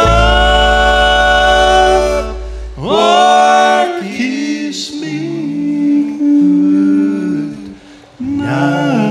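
Bluegrass band closing a song: a held chord over a sustained upright bass note, then harmony voices that slide up and hold long final notes with little instrumental backing.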